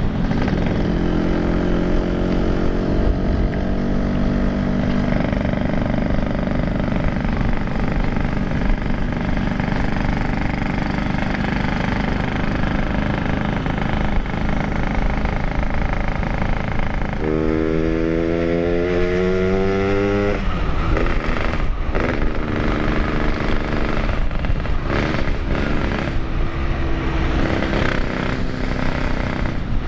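Yamaha RX-King's 135cc two-stroke single-cylinder motorcycle engine running under way. About seventeen seconds in it revs up, rising in pitch for about three seconds, then drops back abruptly.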